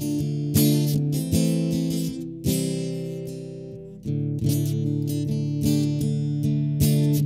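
Acoustic guitar strumming chords at random as backing music, one chord left ringing and fading for about a second and a half midway.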